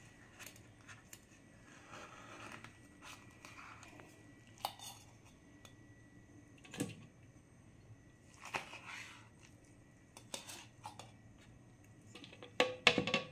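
Steel spoon scraping thick milk cream out of a steel bowl and knocking it off into a mixer-grinder jar: soft scrapes and scattered clinks and knocks, with a few louder knocks near the end.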